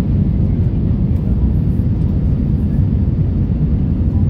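Airbus A320 heard from inside the passenger cabin during the landing: a steady low rumble of engine and airflow noise with no distinct bumps or changes.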